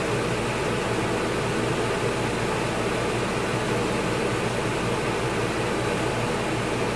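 Steady, even background hiss with a low hum, unchanging, of the kind a running fan or air-conditioning unit makes in a small room; no other sound stands out.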